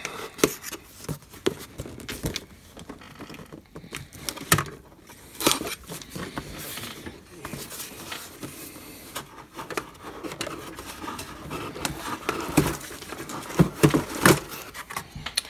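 Craft knife slicing through the packing tape on a cardboard kit box, then the box opened and handled: irregular scrapes, light knocks and clicks.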